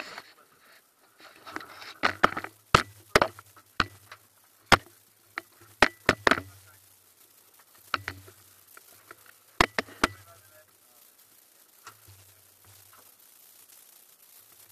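Handling noise of an action camera being moved and knocked about: a dozen or so sharp knocks and clicks close to the microphone with a low rumble, most of them in the first ten seconds and only a few faint ones after.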